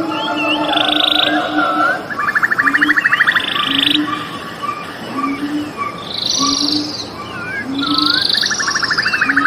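A mixed chorus of birds calling and singing together: chirps, whistled notes and buzzy rapid trills. Beneath them, a low short call repeats about once a second.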